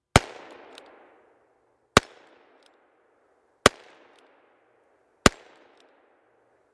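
Ruger Super Wrangler single-action revolver firing .22 Magnum rounds: four shots, evenly paced about a second and a half to two seconds apart. Each crack is followed by an echo that fades over about a second.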